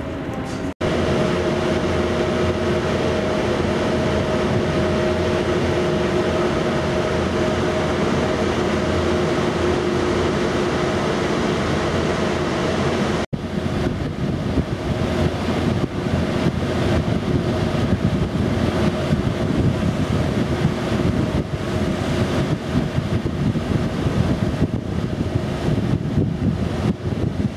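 Steady hum of a ship's machinery and ventilation at sea, with two held tones over a noisy rush. It breaks off abruptly twice, about a second in and about thirteen seconds in. After the second break it is rougher, with more rumble and weaker tones.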